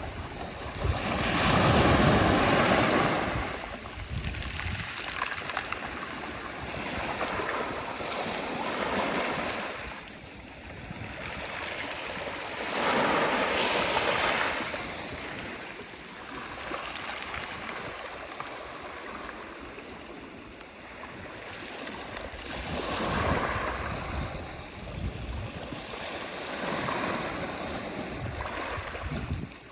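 Sea waves breaking and washing on the shore, rising and falling in swells every several seconds. The loudest and deepest break comes about two seconds in.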